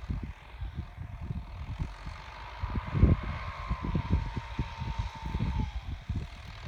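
Wind buffeting the microphone in uneven gusts, the strongest about three seconds in, over the faint drone of a distant New Holland TD90D tractor pulling a harrow across a ploughed field. The engine note comes through most clearly in the middle, then drops slightly and fades.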